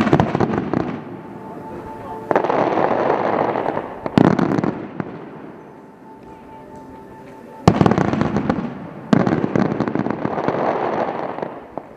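Aerial fireworks shells bursting in volleys: sharp bangs at the start and about 2, 4, 8 and 9 seconds in, each followed by a few seconds of dense crackling from the falling stars.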